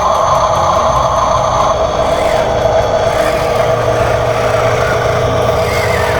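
Electric motors of a radio-controlled construction model (RC dump truck or RC excavator) running with a steady whine. One of the higher tones drops out under two seconds in, and a low hum joins in the second half.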